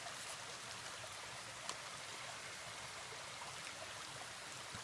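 A small rainforest creek flowing steadily, an even watery hiss, with a couple of faint ticks.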